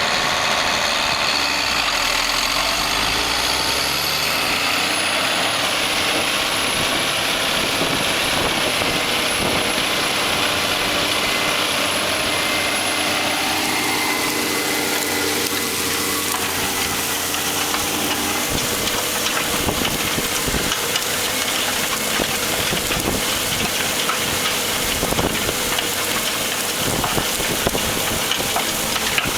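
Challenger 75D rubber-tracked tractor's diesel engine running steadily while ploughing, with a high whine that rises in the first few seconds and then holds.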